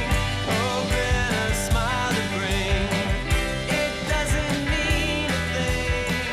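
Rock-style outro music with drums keeping a steady beat, a bass line and a gliding melodic lead.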